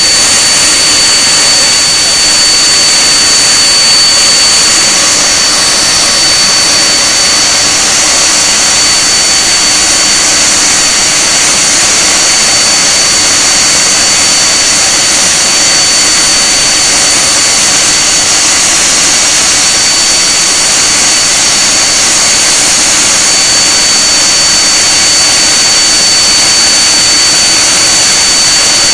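The Rolls-Royce Conway turbofans of a Handley Page Victor K2 running steadily on a ground run: a loud, even jet rush with a steady high-pitched whine.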